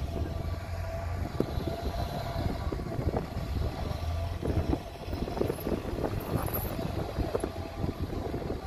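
4x4 SUV engine running under load as it tows a stuck city bus through deep snow on a tow strap, with a steady low drone and irregular knocks and crackles throughout.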